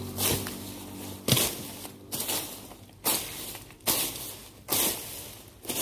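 A regular series of crunching strikes on the ground, about one a second, each sharp at the start and trailing off. A low steady hum fades out just after the start.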